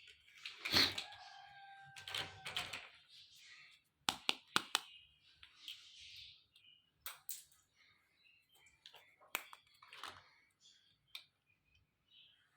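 Small plastic toy kitchen pieces being handled: scattered clicks and taps with light rustling and scraping, including a quick run of four clicks about four seconds in.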